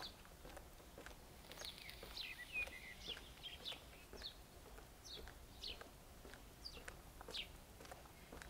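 Small birds chirping: a run of short, quick downward chirps, one or two a second, faint over a low steady background hum.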